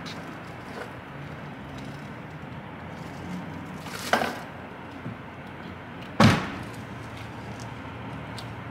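A sharp, loud bang about six seconds in, after a shorter scraping rustle about four seconds in, over a steady low engine hum.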